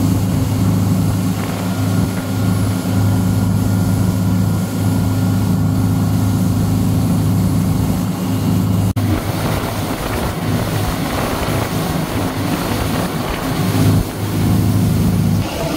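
A fishing boat's engine running at speed: a steady low drone over the rush of the churning wake and wind on the microphone. The drone stops just before the end.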